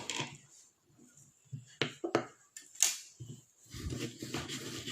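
A kitchen utensil knocks sharply against a stone mortar (cobek) several times, then a steady rough scraping starts about three-quarters of the way through, as ingredients are worked in the mortar.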